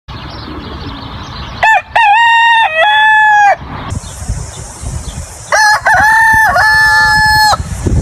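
Rooster crowing twice, each crow a cock-a-doodle-doo of about two seconds made of several linked notes, the second beginning about five and a half seconds in, over a low background rumble.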